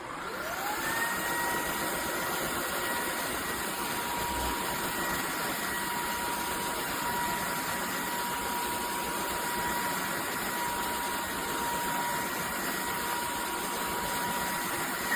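Vacuum cleaner motor switching on, its whine rising in pitch over under a second, then running steadily with a high whine over the rush of air.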